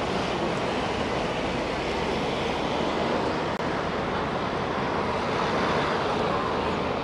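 Steady rushing noise of a moving vehicle, even and without distinct tones.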